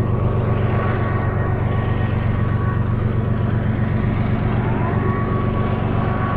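BNSF diesel locomotives working upgrade: a steady, loud engine drone, with a thin high whine that glides up in pitch about five seconds in and then holds.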